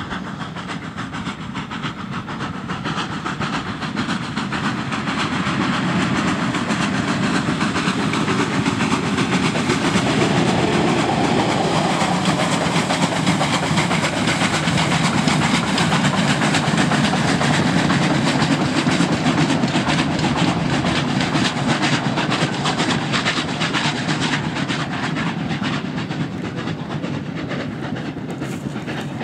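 Ol49 two-cylinder steam locomotive hauling a passenger train past. The sound grows over the first few seconds, is loudest through the middle, and fades toward the end as the train moves away.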